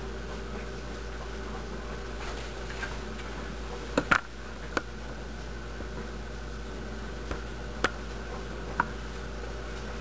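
Steady low hum and hiss with about six short, sharp clicks: a close pair about four seconds in, another just after, and three more spaced out near the end.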